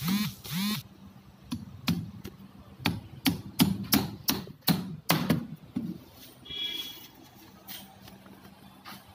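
Hammer striking the timber of a wooden column shuttering: a run of sharp knocks, about two to three a second, stopping about six seconds in.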